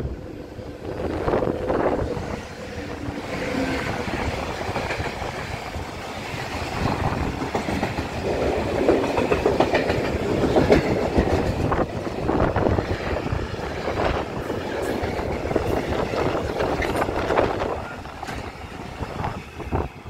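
Freight train passing, its wagons clattering over the rail joints, with some high-pitched wheel squeal in places. The sound is loudest in the middle and drops away near the end.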